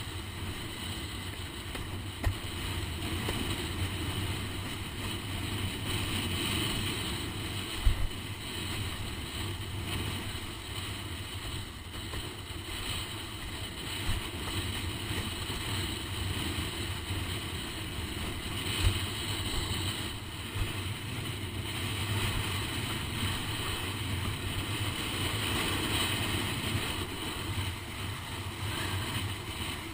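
Steady wind noise buffeting a GoPro microphone on a windsurf rig, mixed with water rushing past the planing board in high wind. A few sharp knocks stand out, the loudest about eight seconds in.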